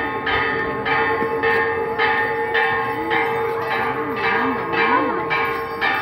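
Church bells ringing in quick, even strokes, about two a second, each stroke ringing on under the next.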